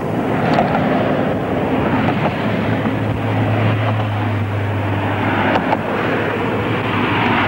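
Road traffic: cars and a van passing close at speed, a steady rush of tyre and engine noise, with a low engine hum coming in about a third of the way through.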